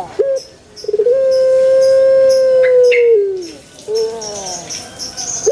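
Puter pelung dove cooing: a short note, then a long coo held steady for about two seconds that falls in pitch at its end, followed by a shorter falling note. Small birds chirp in the background.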